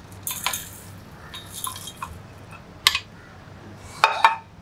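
Whole spices sliding off a plate and dropping into a stainless-steel mixer-grinder jar, rattling and clinking against the metal in several short bursts, the longest near the end.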